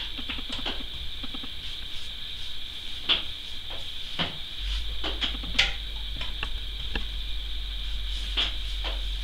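A watercolour brush tapping and clicking in the paint wells of a metal palette while it is loaded with paint, a handful of sharp taps spread over several seconds, over a steady background hiss.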